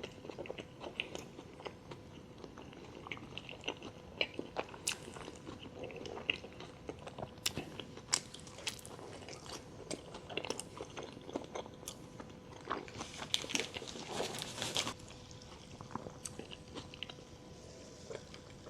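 Close-miked eating: a person biting into and chewing crunchy fast food, with crisp crackling bites and a denser run of crunching about two-thirds of the way through. A faint steady hum runs underneath.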